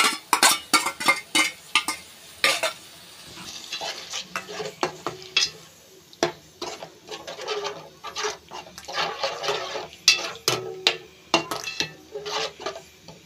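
Steel slotted spatula stirring and scraping around a kadai in irregular strokes, clicking against the pan, as yogurt is mixed into frying onion masala, with a sizzle beneath.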